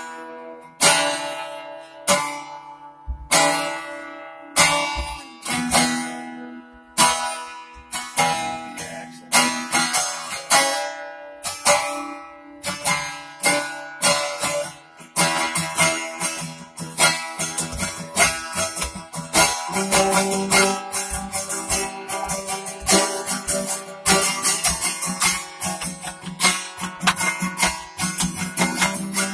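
Acoustic guitar being strummed: single chords struck about once a second and left to ring for the first half, then steady, faster strumming from about halfway on.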